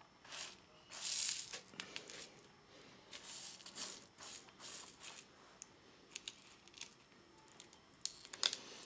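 Loose rhinestones rattling and scraping under a paint-edger sponge pad as it is swept back and forth across a rhinestone template, in a run of soft brushing swishes, with a few sharper clicks of stones near the end.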